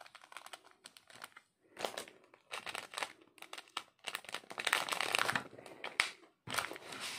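Clear plastic packaging crinkling and rustling as it is handled, in scattered bursts that grow busier and louder in the second half.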